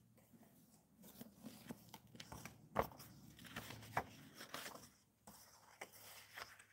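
Pages of an antique hardcover book being opened and leafed through by hand: soft paper rustling with a few sharp page snaps, the loudest about three and four seconds in.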